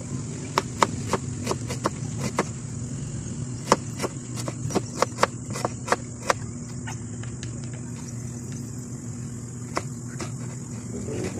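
Kitchen knife chopping ginger on a cutting board: a quick, irregular run of sharp knocks for about six seconds, then a single cut near the end, over a steady high insect-like drone.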